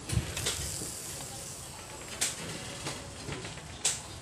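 Marinated pork chop sizzling over a charcoal grill, a steady hiss, with three sharp clicks spread through it.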